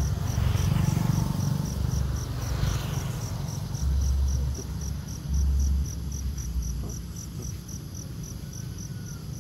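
An insect chirping steadily in a high, even pulse, about three chirps a second, over a low rumble on the microphone that swells twice, about four and five and a half seconds in.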